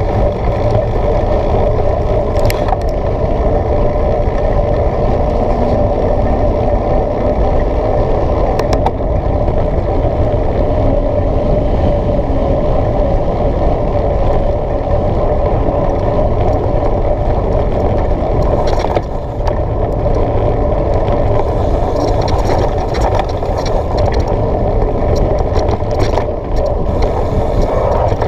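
Mountain bike ridden fast on a dry dirt track: steady wind buffeting on the action camera's microphone mixed with tyre rumble on the gravel, with a few sharp knocks.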